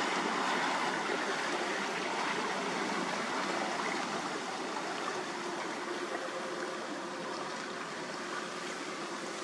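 Steady rushing, churning water, plausibly the wash stirred up by a passing boat, easing off slowly, with a faint low hum underneath in the second half.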